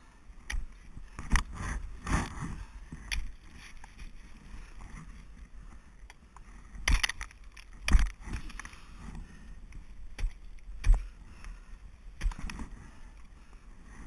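Ice axes being swung and driven into waterfall ice, a series of irregular sharp thuds and crunches with a lull around the middle.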